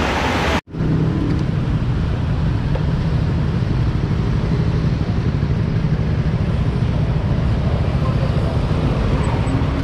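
Busy street traffic: motorbike and car engines running around the bicycle as a steady low rumble. It starts with an abrupt edit cut under a second in.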